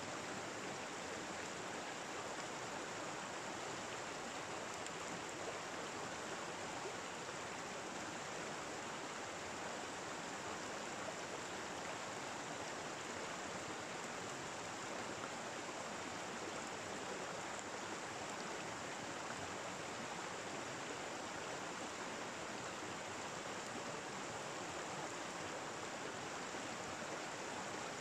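Steady rush of a flowing stream, water running without a break.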